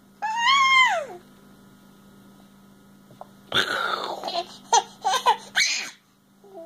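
A baby laughing: a high squeal near the start, then a breathy laugh breaking into a string of short giggles.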